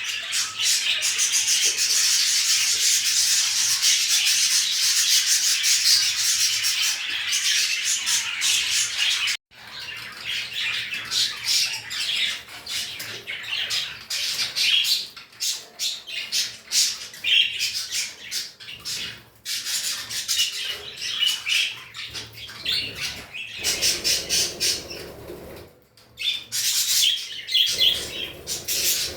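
Cage birds chirping and squawking in a dense, continuous chatter, which cuts off suddenly about nine seconds in and then comes back as more broken bursts of calls, with another short drop-out near the end.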